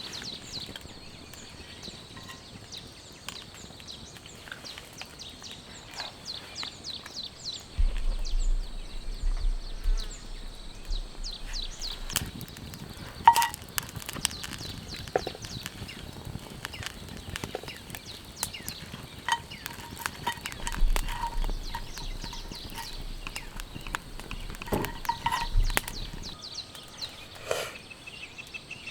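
Raindrops tapping irregularly on a shelter, with a few louder drips, one about halfway through. Two stretches of low rumble come and go.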